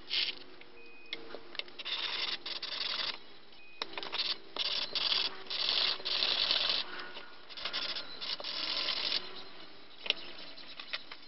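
Aluminium build plate of an Anycubic Photon resin 3D printer being rubbed by hand on sandpaper, in irregular scratchy strokes with a few sharp clicks between them. The sanding roughens the plate so that printed resin sticks to it better.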